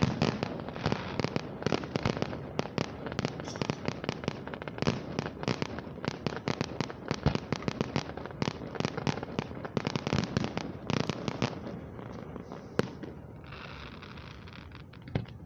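Aerial fireworks bursting in a rapid, dense barrage of bangs and crackles that thins out after about eleven seconds, with one last sharp bang a little later.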